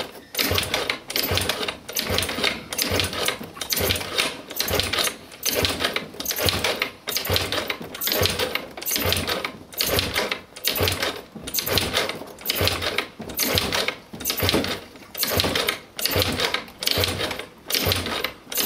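Luxxon King 50 cc scooter engine turned over again and again with the kickstarter, a rattling crank stroke about once a second, for a compression test with the spark plug out. The engine builds little compression, under 3 bar, and the kickstarter goes down easily.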